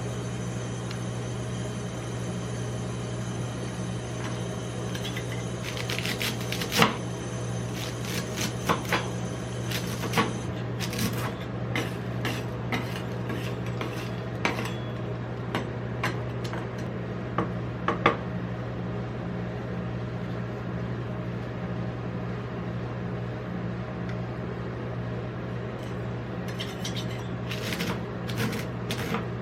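Metal spatulas tapping and scraping on the chilled steel plate of a rolled ice cream stand: irregular sharp clicks over a steady low hum.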